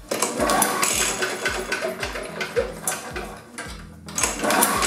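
Briggs & Stratton small engine being cranked over for a spark check, a dense mechanical clatter that breaks off briefly near the end; the engine does not start, having weak, intermittent spark. Background music with a steady beat plays underneath.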